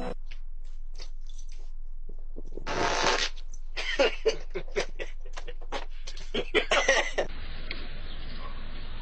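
A person farting: one longer fart about three seconds in, then a sputtering string of short ones over the next three seconds. After that, a steady background hiss.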